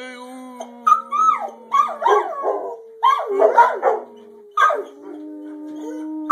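Dogs howling: long, steady held howls overlap with shorter wavering, sweeping howls and a few sharp barks.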